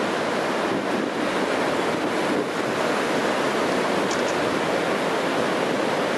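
Steady rush of ocean surf breaking on the beach, mixed with wind on the microphone.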